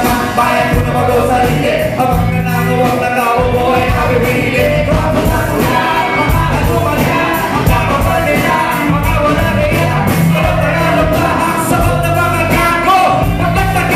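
Live pop song with several singers trading lines into microphones over a band with bass guitar and a steady, pulsing beat.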